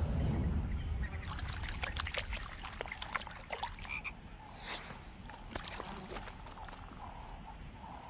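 Frogs calling at a pond: a deep low call in the first second, then a quick run of sharp clicking calls that thins out after about five seconds, over a steady high whine.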